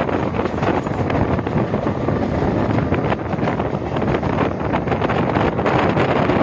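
Wind rushing hard over the microphone held out of a moving Mumbai local electric train, mixed with the train's steady running noise on the rails.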